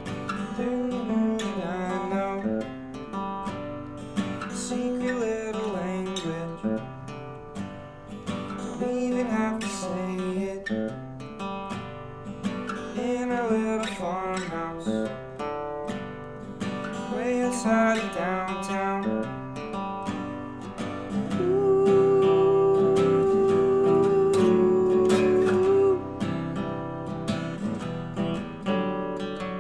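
Steel-string acoustic guitar played fingerstyle, an instrumental passage of a song with plucked notes and a moving melody. In the second half a single steady note is held for about four seconds, the loudest part of the passage.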